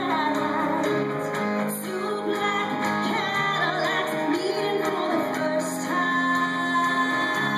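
A woman singing a song live into a microphone with band accompaniment: melodic vocal lines with held and sliding notes over sustained low bass notes, heard off a television broadcast.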